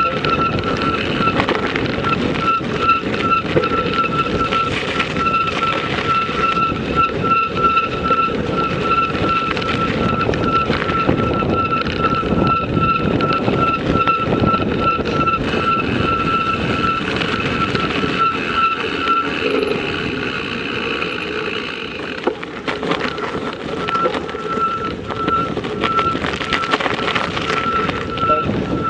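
Steady rush of wind and rolling noise from a moving ride, with a steady high whine through most of it that drops out for a few seconds about two-thirds of the way in.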